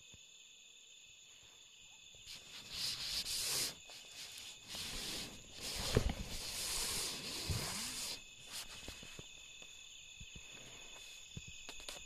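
Night insects calling steadily with a thin, high drone. From about two to eight seconds in, louder rustling and rubbing in several spells covers it.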